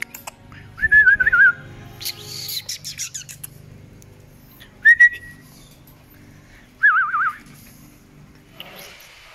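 Bichon Frise puppy whining: three short, high, wavering whimpers, about a second in, about five seconds in and about seven seconds in, with a brief rustle between the first two.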